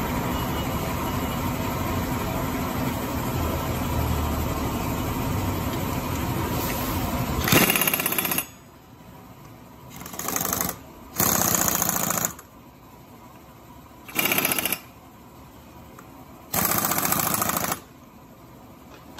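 Pneumatic impact wrench hammering in five short bursts on the clutch bell nut of a KYMCO Cue 125 scooter's rear CVT pulley. The bursts begin about seven and a half seconds in, after a steady mechanical hum.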